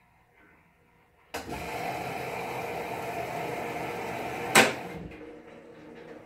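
Whirlpool Duet HE3t front-load washer starting up: a steady mechanical hiss-buzz starts suddenly about a second in, runs for about three seconds and ends in one loud clunk, then fades away. These are the washer's startup and door-locking sounds, which can be mistaken for a noisy solenoid.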